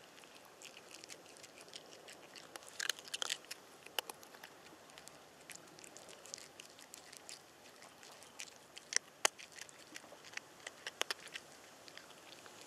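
A cat chewing and crunching food, with irregular sharp crunches over a faint background hiss.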